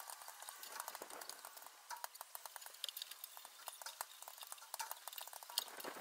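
Faint, rapid small clicks and ticks of a hand screwdriver turning the screws of a steel mounting bracket on an engine control module's metal case, with the bracket and case being handled.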